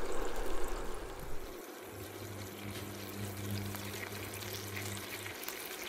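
Chicken thighs sizzling and bubbling softly in their rendered fat and juices in a skillet over low heat, uncovered. A low, steady hum runs under it from about two seconds in until shortly before the end.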